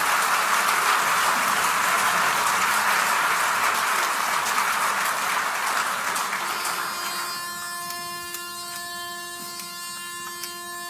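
Audience applause dying away over the first six or seven seconds. Then a single steady note sounds from about seven seconds in and holds: a pitch pipe giving the barbershop chorus its starting pitch.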